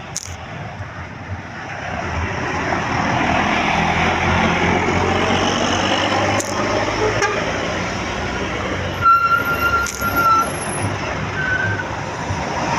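Tour bus passing close, its engine and road noise building over the first few seconds. About nine seconds in, its Basuri 'telolet' horn sounds one high, steady note for about a second and a half, then a shorter, slightly higher note.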